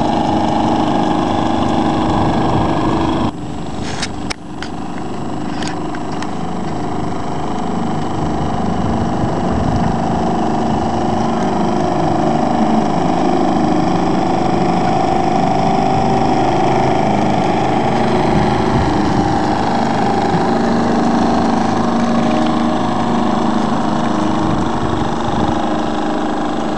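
Vee-twin Stirling outboard engine, two LPG-fired alpha engines on a common crankshaft, running steadily with a hum of several held tones. About three seconds in the sound cuts and drops, followed by a few sharp clicks.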